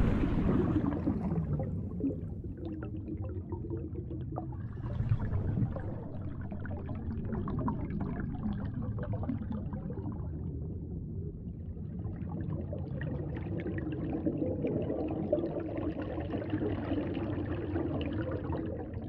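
Muffled underwater water ambience: a low, steady rush with faint gurgling and bubbling. It is louder at the start and eases over the first couple of seconds.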